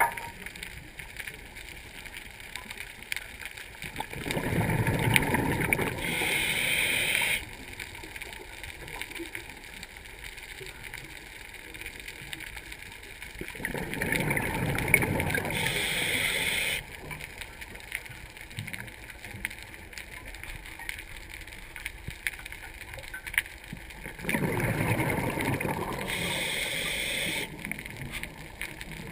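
Scuba diver breathing through a regulator underwater: three breaths about ten seconds apart, each a low bubbling rush of exhaled air followed by a higher hiss of the inhale.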